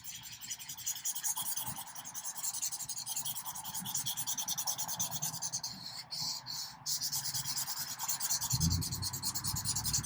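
Marker scribbling back and forth on paper, a fast, even run of scratchy strokes coloring in a shape, with a couple of short breaks partway through.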